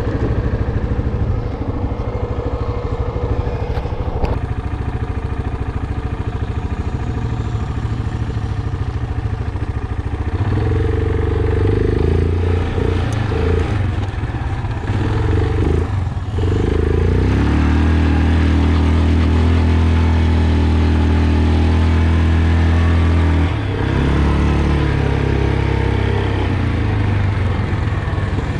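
ATV engine running under way across sand, its revs changing with the throttle. Just past halfway the revs climb and hold a steady, louder note for about six seconds, with short drops in revs before and after that stretch.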